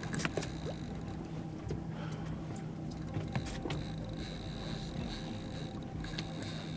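Boat engine running steadily in reverse, backing down on a hooked tuna, with a low steady hum and a few light clicks.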